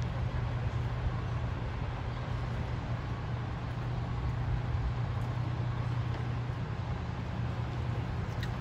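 Idling vehicle engine: a steady low hum with a faint noisy background, unchanging throughout.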